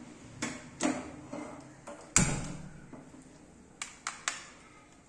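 Wooden spatula knocking and scraping against a non-stick frying pan while stirring sliced mushrooms and onion, a string of sharp taps with the loudest knock about two seconds in and three quick taps near the end.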